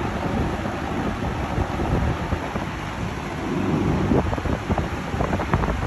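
Vintage Super Electric box fan running, a steady rush of air with a low rumble where the airflow buffets the microphone. It runs smoothly, like a new one.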